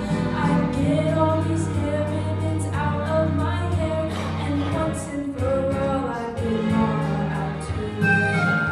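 Live singing into microphones over musical accompaniment, amplified through the hall's speakers.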